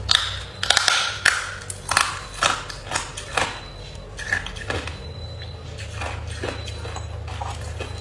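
Hard ice cubes being bitten and crunched between the teeth: a quick run of sharp cracks over the first three or four seconds, thinning to a few quieter crunches later on.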